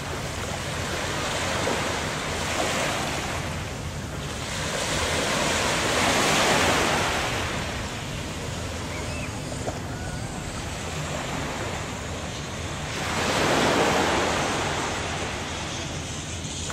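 Sea waves breaking on a beach, the wash of surf swelling and ebbing slowly, with the loudest swell late on, over a steady low rumble of wind on the microphone.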